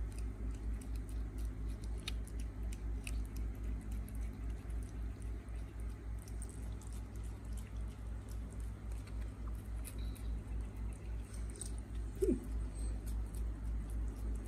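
Cats licking a lickable treat from a squeeze tube held in a hand: steady wet licking in an even rhythm of about three to four strokes a second. There is a brief squeak about twelve seconds in.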